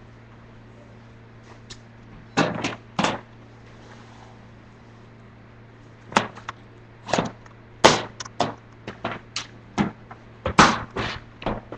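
Roller skates knocking and clattering on a hard floor: a few knocks two to three seconds in, then a quick, uneven run of them from about six seconds on.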